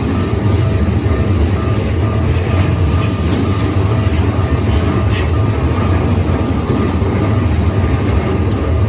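Keikyū Line electric train passing over a level crossing: a steady, loud rumble of wheels on the rails.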